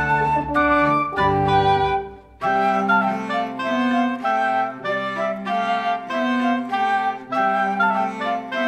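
Instrumental background music: a melody in short held notes over a lower accompaniment. It dips away briefly about two seconds in, then resumes.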